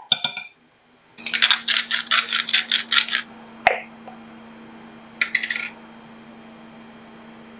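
A brief scrape of a fork on squash at the start. Then a spice grinder twisted by hand: a quick run of about ten grinding clicks, about five a second, and a shorter run a couple of seconds later.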